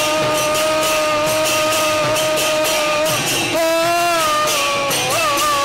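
Bengali devotional kirtan music: khol drums and percussion keep a brisk beat under a long held melody note that breaks off about three seconds in, returns and bends up and down near the end.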